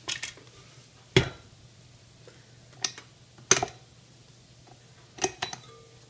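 Scattered sharp clicks and knocks of a tilt-head stand mixer being handled, with the head raised and dough pulled off the dough hook in its glass bowl. The loudest knock, about a second in, has a low thud.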